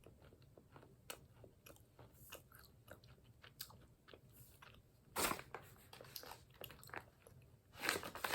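Crunching and chewing of coated, hazelnut-flavoured almonds: a run of small, sharp cracks, with louder crunches about five seconds in and again near the end.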